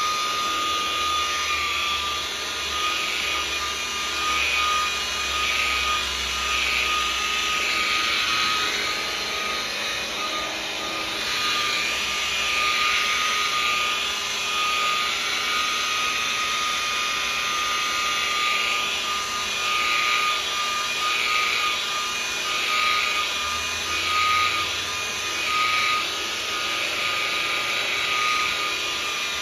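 DeWalt rotary polisher set to about 1800 RPM, buffing polish into a painted panel's clear coat. A steady motor whine runs throughout, with a swishing that swells and fades over and over, roughly once a second, as the pad sweeps across the paint.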